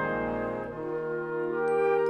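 Concert wind band playing: a full, held brass chord with horns and trombones thins out and softens before a second in, then new sustained notes take over, and a high ringing note comes in near the end.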